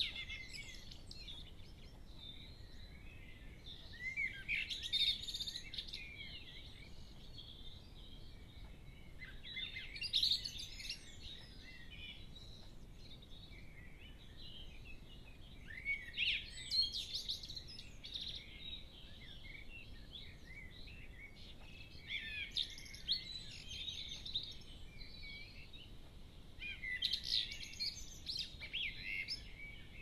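Dawn-chorus birdsong: phrases of high, warbling song about two seconds long, repeated roughly every six seconds over a faint steady background hiss.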